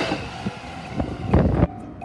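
Yokosuka Line train running past a level crossing, its noise fading, with wind gusts buffeting the microphone and a loud low rush just before it cuts off suddenly near the end.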